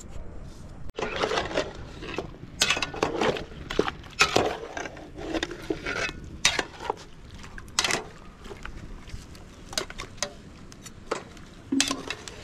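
Metal slotted spoon clinking and scraping against a steel cooking pot as pieces of meat are stirred in it. Irregular sharp knocks and rattles.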